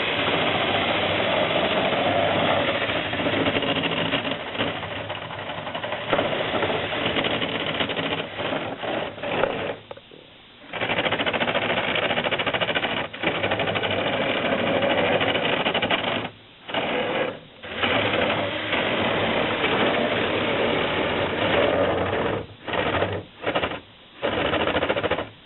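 LEGO Technic bulldozer's small electric motors and plastic gears whirring, stopping and starting again several times, with a run of short bursts near the end.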